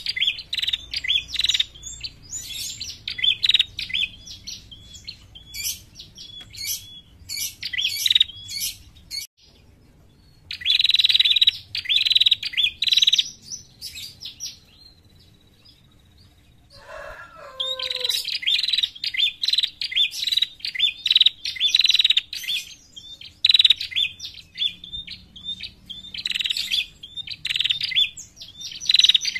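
Caged female prenjak (the rufous-headed ashy tailorbird) calling in fast strings of sharp, high chirps. The song pauses twice, and a short lower call falls in pitch about 17 seconds in. This is the female's call used as a lure to draw in wild prenjak.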